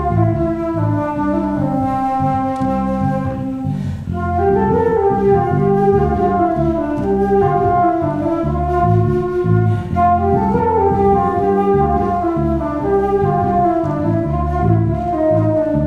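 Flute, accordion and electric bass playing together live: a melody and held accordion chords over a bass line moving in steady rhythmic notes.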